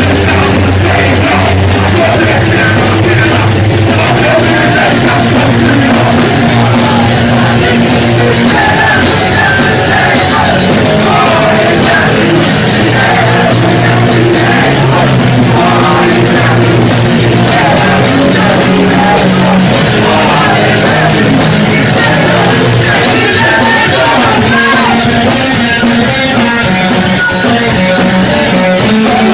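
Punk rock band playing live and loud, with shouted vocals into a microphone over electric guitar.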